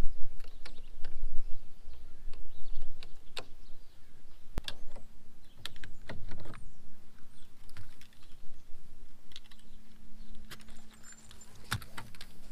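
Scattered light clicks and knocks from a garden hose and its fittings being handled, over a low wind rumble on the microphone. A faint steady hum comes in around the middle and grows a little stronger near the end.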